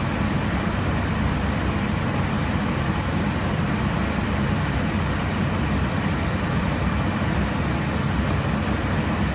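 Steady rush of air and engine noise inside an airliner in cruise flight, deep and even throughout.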